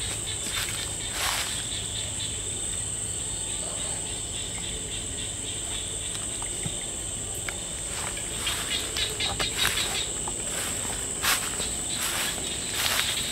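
A steady, high-pitched chorus of night insects. Over it come footsteps crunching on dry leaf litter: one about a second in, then a quicker run of steps in the last few seconds.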